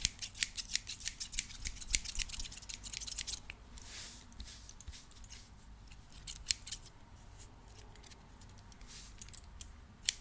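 Scissors snipping quickly, about four cuts a second, for the first three seconds or so. Then comes a soft swish, and after that only a few scattered snips.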